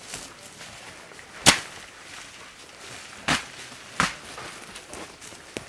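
Leafy rhododendron branches beaten against the smouldering forest floor to smother a fire: four sharp swishing slaps, the loudest about a second and a half in, two more close together a couple of seconds later and a small one near the end.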